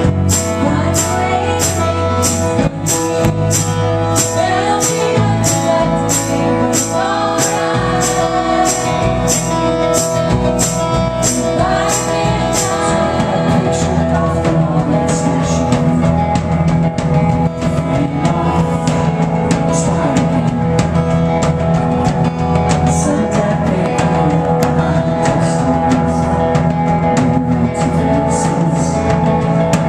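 Live band music: an acoustic guitar strummed with keyboard and a woman singing, over a steady jingling tambourine beat of about two strikes a second.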